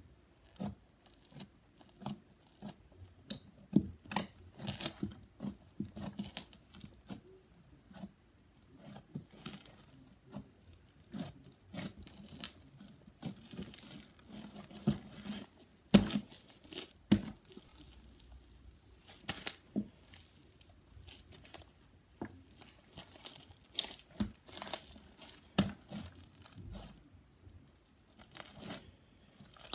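Hands squishing, stretching and pulling apart blue slime full of small foam beads, giving irregular sticky crackles and tearing sounds, with a couple of sharper snaps past the middle.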